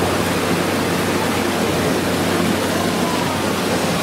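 Water pouring and splashing from a themed stone fountain statue in a steady rush, with a low steady hum underneath.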